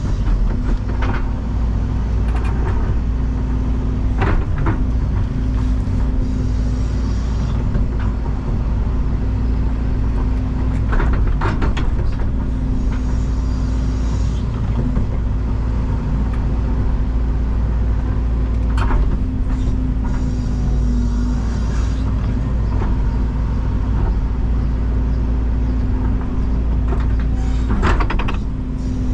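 Excavator diesel engine running steadily under load, with a steady hydraulic drone and a few knocks and clanks.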